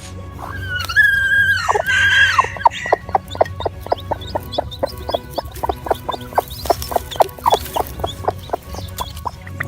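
Domestic chickens calling: loud, drawn-out, sliding calls for about two seconds, then a fast run of short calls, several a second.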